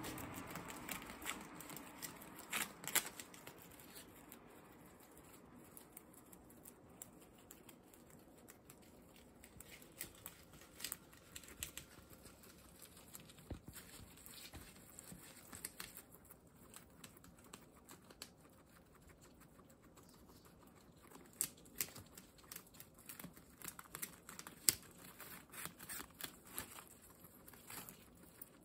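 Guinea pigs chewing and tearing fresh leaves: faint, irregular crisp crunches and leaf rustles, with a few louder snaps about three seconds in and again in the last third.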